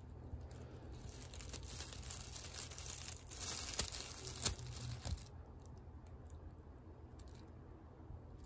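Shredded, cat-chewed brown packing paper crinkling and crackling as it is handled. The crinkling stops about five seconds in.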